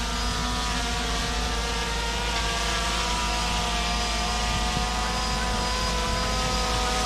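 Quadcopter drone's motors and propellers whining steadily in flight, several held pitches that drift only slightly.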